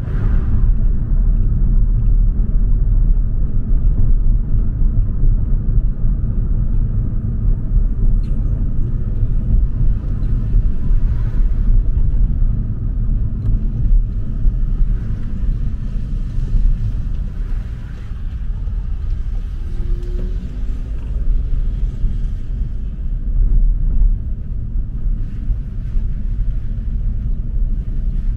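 Car driving slowly, a steady low rumble of engine and road noise throughout.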